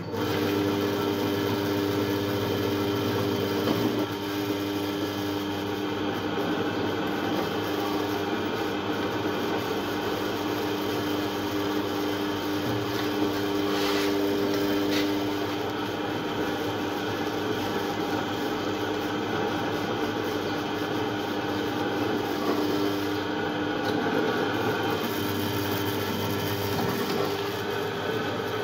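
Pillar drill press running steadily with a low electric-motor hum while its bit is fed by hand into a steel tube clamped in a machine vise.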